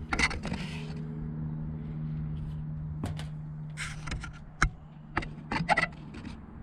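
Scattered clicks, taps and scrapes of hands and tools working on a rooftop HVAC unit's control wiring, over a steady low hum that fades out about five and a half seconds in.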